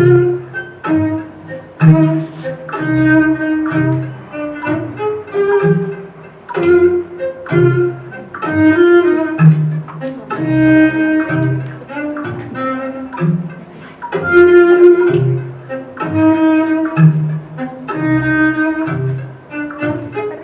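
Instrumental music with a low bowed-string melody over a bass line of separate notes, with light clicks throughout.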